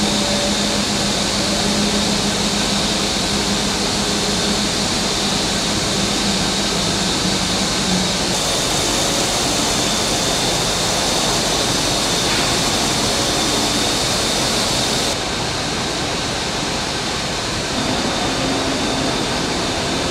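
Steady hissing hum of a large aircraft assembly hall, from ventilation and machinery. Its tone changes abruptly a few times, about 8, 15 and 18 seconds in.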